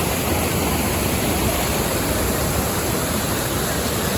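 Steady rushing roar of water falling at a large waterfall, even and unbroken.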